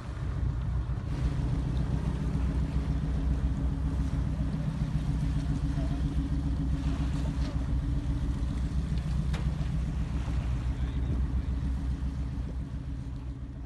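An engine running steadily: a constant low hum that sets in about a second in and holds at one pitch.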